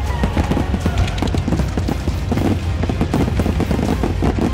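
A rapid volley of fireworks bursts, many reports a second, going off over the show's music soundtrack.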